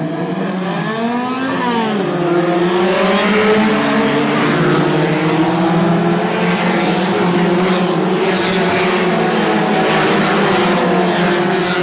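A field of hatchback touring race cars accelerating away from the grid together, many engines revving at once with overlapping pitches that rise and fall. It grows louder over the first few seconds as the cars get going.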